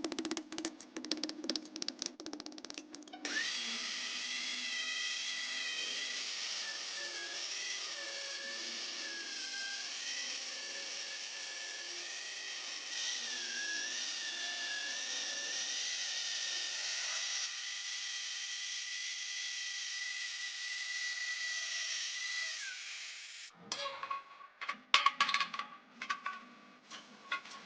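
Electric grinder working steel vehicle leaf spring, running steadily for about twenty seconds with a whine that wavers and dips as it bears on the metal, then cutting off suddenly. Rapid clattering knocks come in the first few seconds and again near the end.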